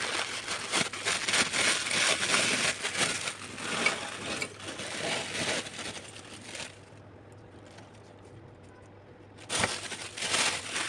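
Dried crayfish crackling and rustling as handfuls are put into a grinder, a dense run of dry crackles lasting about six and a half seconds. Then a pause, and a brief clatter near the end.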